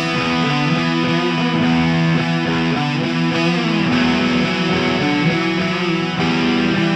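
Background rock music: a passage of held guitar notes with no drums.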